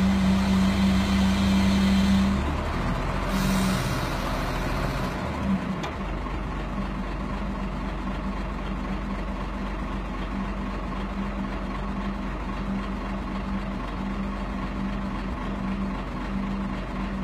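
Truck-mounted crane's diesel engine running steadily with a strong hum, louder for the first two seconds, with a brief hiss about three seconds in.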